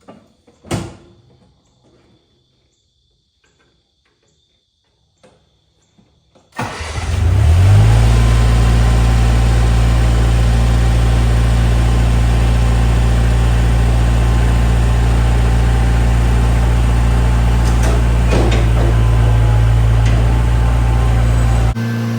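A sharp knock, then about six seconds in a Bobcat 743 skid steer's engine starts up and settles into a loud, steady run. The engine sound cuts off abruptly just before the end.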